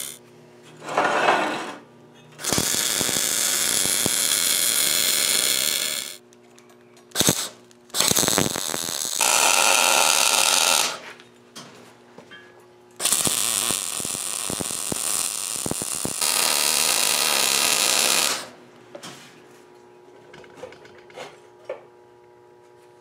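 MIG welder arc on steel square tubing: a short burst, then several longer stretches of welding a few seconds each, with short pauses between. Faint ticks and clicks of metal being handled near the end.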